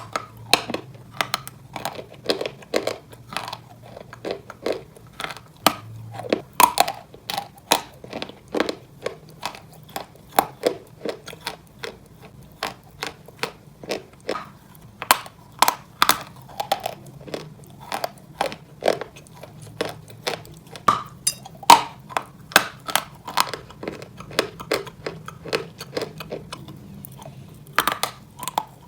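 A person biting and chewing dry white Turkestan chalk: a long run of sharp crunches, about two or three a second.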